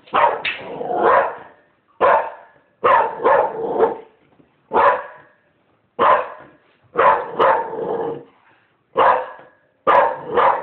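A dog barking repeatedly: loud, sharp barks, singly or in quick runs of two or three, about once a second.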